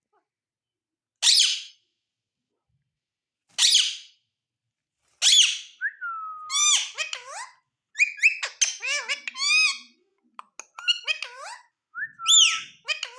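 Ringneck parrot giving three short, loud, harsh screeches a couple of seconds apart, then a long run of quick whistled chirps and warbling chatter that sweeps up and down in pitch.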